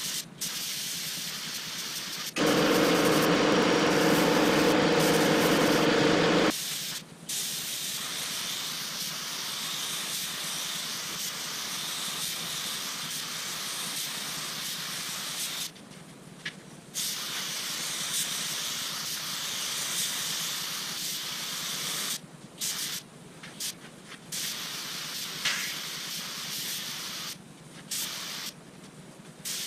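Compressed-air paint spray gun hissing as paint is sprayed onto car body panels, stopping briefly several times in the second half as the trigger is let go between passes. A louder, lower rush of air with a faint hum lasts about four seconds a few seconds in.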